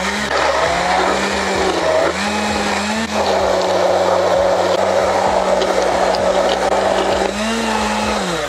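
Electric immersion (stick) blender running, puréeing canned chickpeas in their liquid. Its steady motor hum rises briefly in pitch a few times, then winds down and stops near the end.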